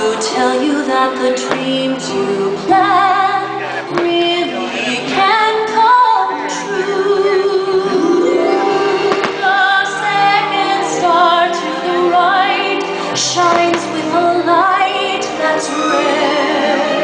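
Fireworks-show soundtrack of music with a female singer holding long notes, with firework shells going off as sharp bangs every second or two.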